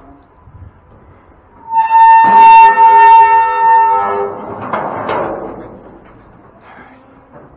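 Steel sliding gate of a livestock trailer squealing as it is pulled shut: one loud, steady, high metal-on-metal squeal of about two seconds, then a rougher scraping.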